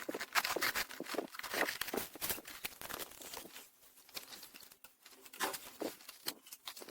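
Irregular rustling, crinkling and light clicks of things being handled, thinning out about halfway through; no clipper motor is running.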